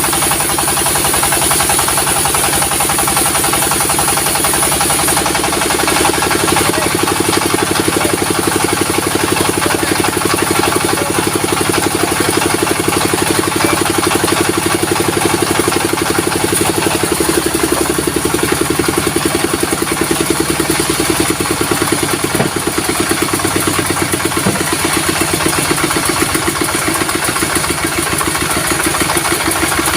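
Diesel engine of a sawmill running steadily with a rapid, even pulse. A high steady whine sits over it for the first five seconds or so.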